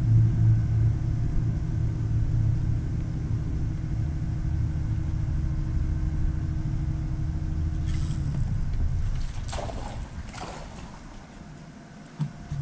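A boat motor running with a steady low rumble and hum that cuts off about eight seconds in, the rumble then fading away. A few short clicks and knocks follow near the end.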